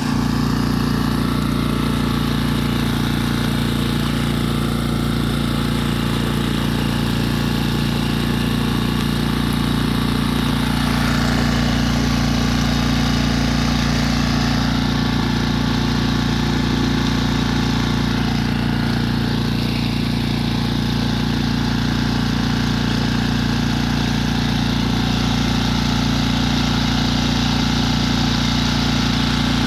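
Tohatsu 6 hp outboard motor running steadily, a nearly new engine with about 19 hours of use, pushing a 1.5-ton sailboat.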